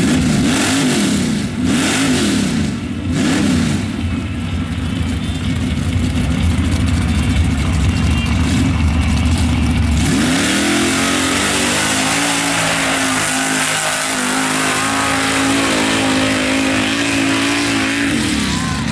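Lifted mud-racing truck's engine rumbling, with its revs rising and falling several times. About ten seconds in, a truck runs the mud pit at full throttle: the engine holds high and climbs in steps over the hiss of tyres flinging mud, then drops off throttle near the end.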